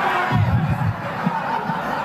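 Audience in a hall cheering and calling out, a mass of mixed voices with a few louder shouts in the first second.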